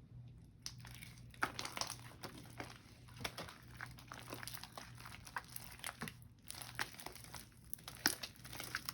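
Hands kneading and stretching sticky clear glue slime: a run of irregular small sticky clicks and crackles.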